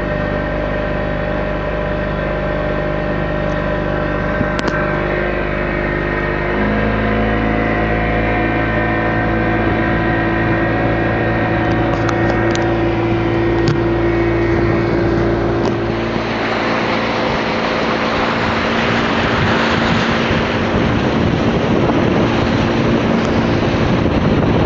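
Motorboat engine running steadily. Its pitch steps up a little over a quarter of the way in, as the throttle is opened. From about two-thirds of the way through, a rushing noise of water and wind covers the engine.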